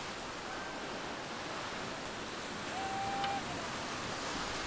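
Steady wash of surf and wind along a beach. About three seconds in comes one short whistled note, held level.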